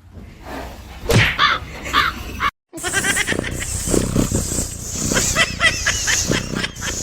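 Animal calls across two clips split by a brief cut: first a few drawn-out calls that rise and fall in pitch, then a rapid run of short, high calls mixed with clicks.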